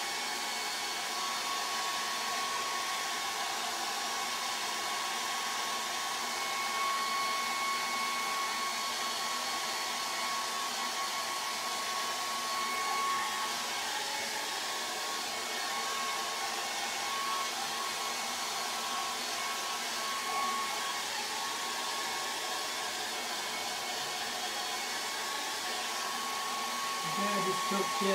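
Handheld hair dryer running steadily, a continuous rush of air with a steady whine from its motor.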